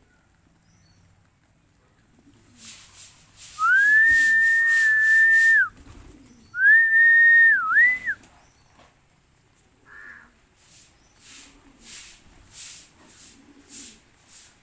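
A person whistles two long, steady notes to call the pigeons; each note rises in at the start, and the second ends with a quick dip and rise. Short high ticks come before, between and after the whistles.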